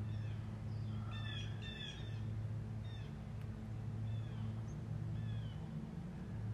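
Turkey yelps: short, falling call notes, a quick cluster about a second in, then single notes every second or so. A steady low hum runs underneath.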